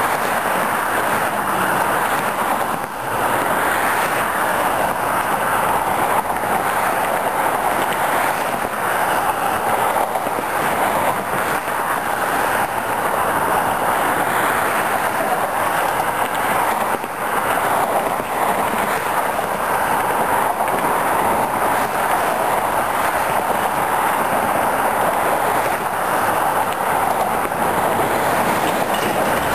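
Steady noise of interstate freeway traffic: tyres and engines of passing cars and trucks blending into one continuous rush, with a brief dip about three seconds in.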